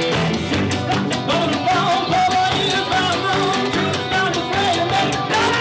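A bluegrass-rock band playing live and loud: drums, banjo, guitars and upright bass, with a man singing lead over the band from about a second and a half in.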